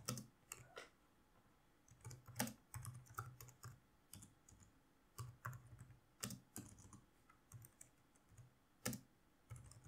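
Computer keyboard typing: faint keystrokes in irregular clusters, with short pauses between words.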